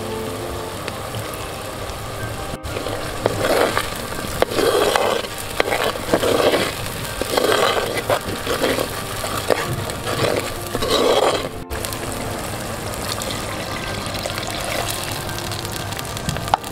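A steel spoon stirring and scraping thick, bubbling curry paste in a clay pot, with rough strokes about once a second between roughly three and eleven seconds in. Soft background music plays under it.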